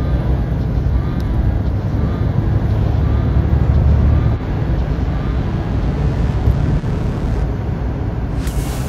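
Cab noise from a Volvo FE 320 diesel lorry driving at speed: a steady low drone of engine and tyres on the road, heard from inside the cab. It eases slightly a little under halfway through.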